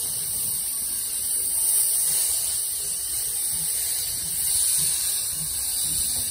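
Steam hissing steadily as it vents beside a steam-hauled train moving slowly.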